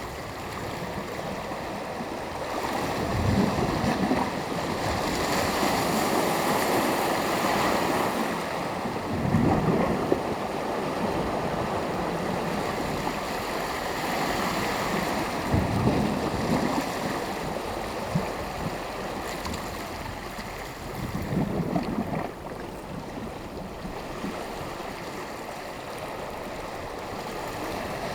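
Sea surf: small waves breaking and washing ashore over a steady wash of water, a wave about every six seconds.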